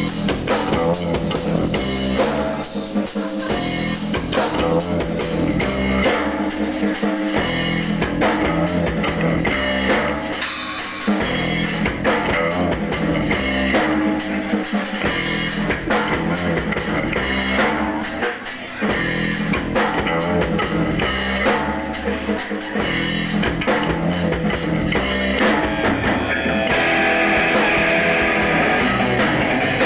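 Emo band playing live: drum kit and guitars in a rock song. About three seconds before the end the drum hits drop away and strummed guitar rings on.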